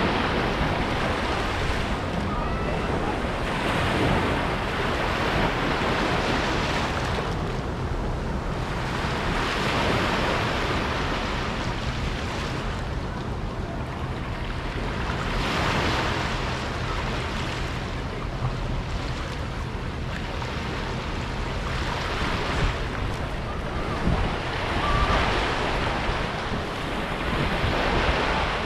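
Sea waves breaking and washing onto a beach, the surf swelling and falling back about every five or six seconds.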